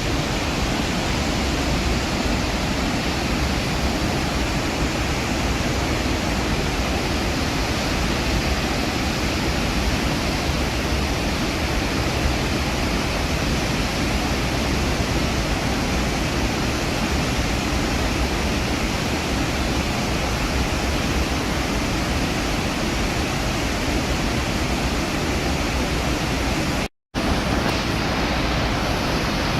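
Steady roar of Iguazu Falls: a continuous, even rush of heavy falling water. It cuts out for a split second near the end.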